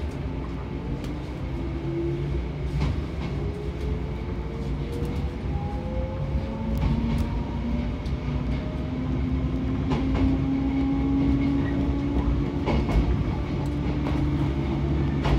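Shinano Railway electric train accelerating away from a station: the traction motors' whine rises slowly in pitch over a low running rumble, with occasional clicks from the wheels over the rails.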